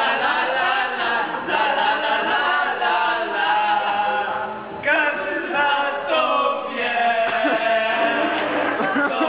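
A group of voices singing a chant-like song together, unaccompanied. The singing dips briefly just before the middle, then comes back in loudly.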